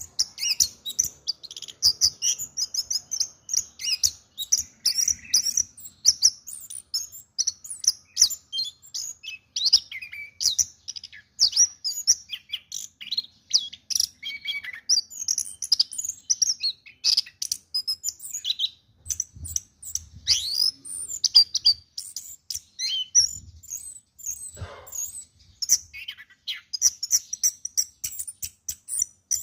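Orange-headed thrush (anis kembang) singing a long, varied song of quick high chirps, whistles and trills, almost without a pause.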